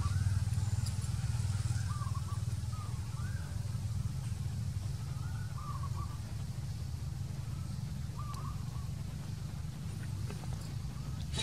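Outdoor ambience: a steady low rumble with faint short chirping calls repeating every second or two.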